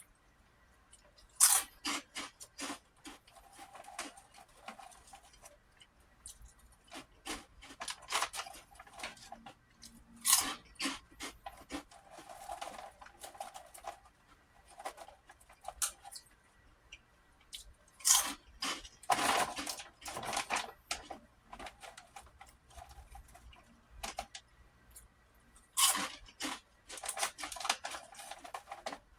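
Close-up crunching and chewing of puffy prawn crackers: a loud crunchy bite every several seconds, about five in all, with softer chewing crackle between.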